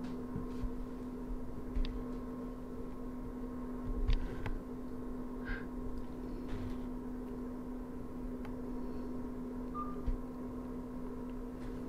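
A steady hum with a constant low tone and a fainter higher one, with scattered faint clicks and taps over it.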